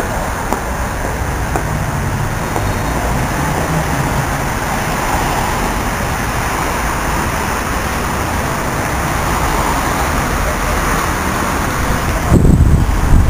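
Steady city traffic noise, a rush of passing cars that swells somewhat in the middle. About a second before the end, a loud low rumble of wind on the microphone cuts in.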